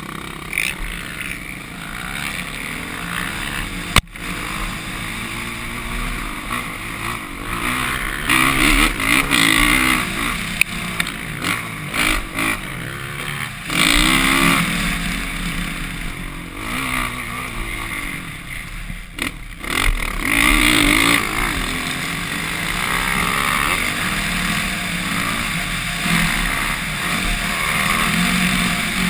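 Dirt bike engines running on a motocross track, the revs surging and easing off again and again as the bikes accelerate and back off, with wind noise on the microphone. A sharp knock about four seconds in.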